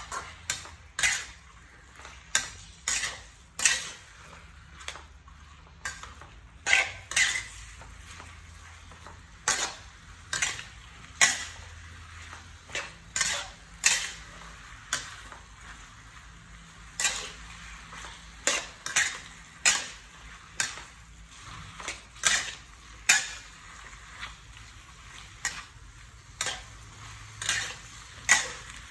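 Spatula scraping and tossing beef and vegetables around a wok during stir-frying, in uneven strokes about once a second, over a steady sizzle of frying.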